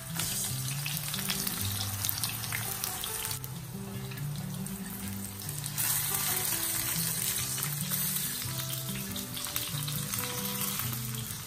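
Brinjal (eggplant) slices shallow-frying in hot vegetable oil in a nonstick frying pan, sizzling steadily; the sizzle gets louder a little past halfway.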